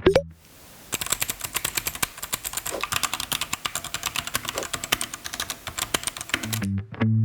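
Rapid typing on a mechanical keyboard: a fast, uneven run of crisp key clicks, several keystrokes a second, lasting about five seconds. Background music cuts out just before the typing begins and returns near the end.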